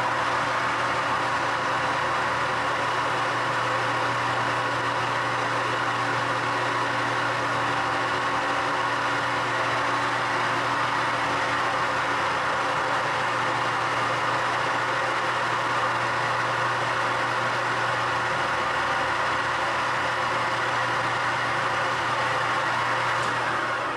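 Electric polishing machine running steadily with a steady low hum while a 3D-printed plastic knob mounted on its arbor is polished. It is switched off near the end and begins to spin down.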